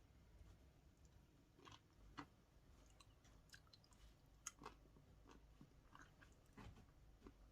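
Faint chewing of food, with scattered small crisp clicks and crunches of bites.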